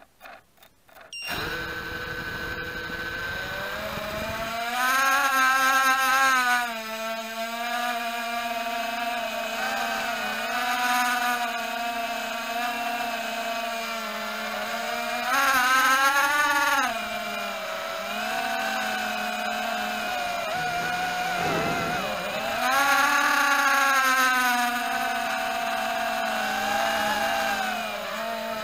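Walkera Rodeo 110 racing quadcopter's brushless motors starting up about a second in, then running as a steady whine that rises and falls in pitch and loudness with the throttle in flight.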